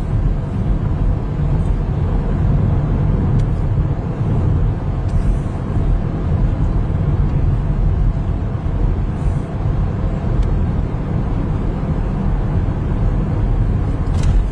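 Steady low vehicle rumble, unchanging throughout.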